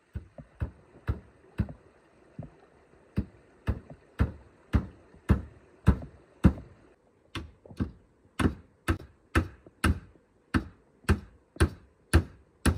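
Hammer blows on a wooden stool frame, struck steadily at about two a second, as it is nailed together.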